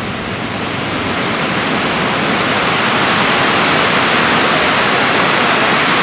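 Ocean surf breaking along the beach: a steady rushing wash of waves that grows gradually louder.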